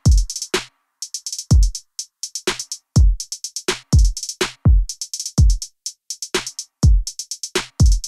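Background music: an electronic drum-machine beat of deep kicks that drop in pitch, over rapid hi-hat ticks, with no melody.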